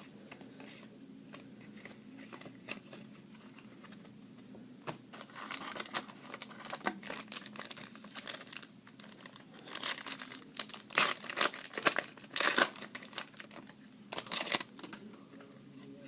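Panini Prestige card-pack wrapper crinkling and tearing as it is ripped open. A run of irregular crackles grows busier and louder toward the end.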